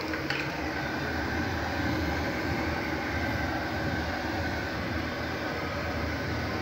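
Hand-held hair dryer running steadily as it dries a wet kitten's fur: an even rushing of air with a faint steady whine.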